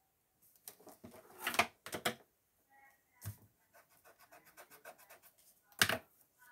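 Pencil scratching and tapping on a paper worksheet, with several louder rustling bursts, the loudest about one and a half seconds in and again near the end, and a run of faint quick ticks in between.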